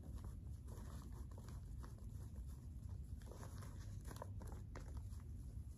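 Faint rustling and crinkling of a stack of paper banknotes being handled and fanned, in a few short, light rustles over a steady low rumble.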